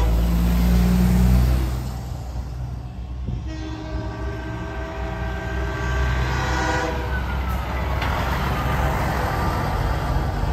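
Semi-truck air horns blowing in long, sustained blasts over the low rumble of passing diesel trucks; one horn note slides down in pitch about seven seconds in.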